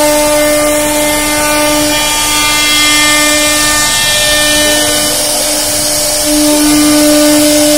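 CNC router spindle milling grooves into a solid wood panel: a loud, steady, high whine with overtones over the hiss of the bit cutting wood. The whine swells at the start and again about six seconds in as the cutter works through the cut.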